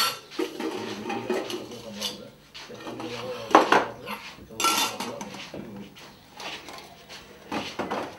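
Dishes and cutlery clinking and clattering in scattered bursts, loudest about three and a half and nearly five seconds in.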